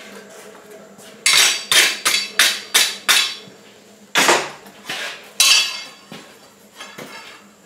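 Metal striking a blacksmith's anvil, with sharp ringing clanks: a quick run of about six a little over a second in, three more louder ones, then a few lighter taps near the end.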